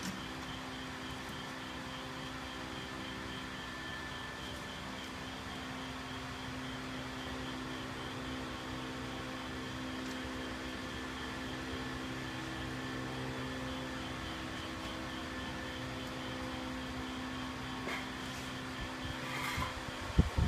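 Small electric drive motor of an animated cauldron-stirring Halloween prop humming steadily as it runs. A few faint ticks come near the end, then a sharp knock right at the close.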